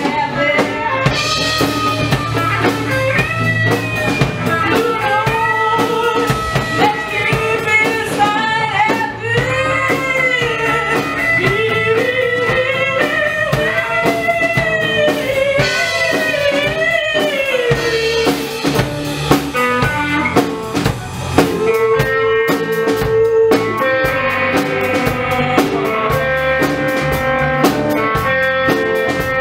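A live rock band playing: two electric guitars, bass guitar and a drum kit, with a woman singing lead.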